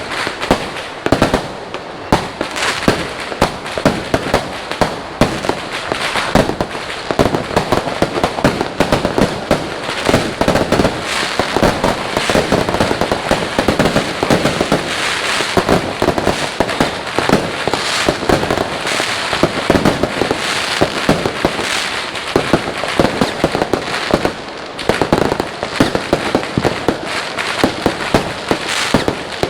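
Fireworks and firecrackers going off in a dense, unbroken barrage of cracks and bangs, many overlapping.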